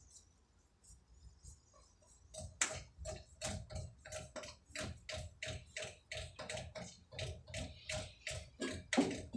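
Rhythmic metallic clicking, about three clicks a second, each with a slight ring; it starts a little over two seconds in after a quiet stretch.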